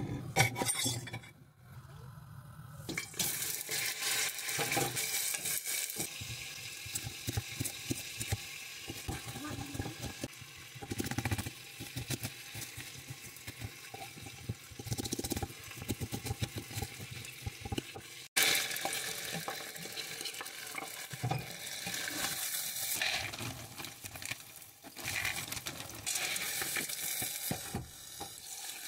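Knife chopping on a wooden cutting board, a long run of quick knocks, then kitchen noise of a wooden spoon stirring peas and chicken pieces in a metal pot.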